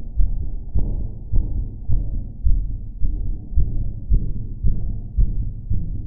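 Strong heartbeat: steady, regular low thumps a little under twice a second.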